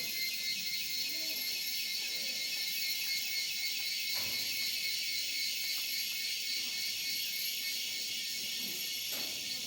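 Rainforest insect chorus: a steady, high, shrill buzzing of several overlapping tones with a fast pulsing trill.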